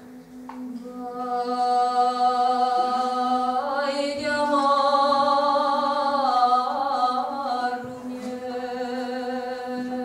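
A doină de jale, a Romanian lament, sung unaccompanied by a woman's solo voice in long held notes with wavering ornaments. Underneath it, a steady low drone is hummed by other voices.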